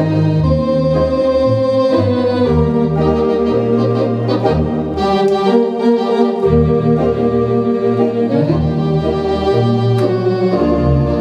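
Allen GW4 digital theatre organ being played: full sustained chords over a bass line that steps from note to note every second or so.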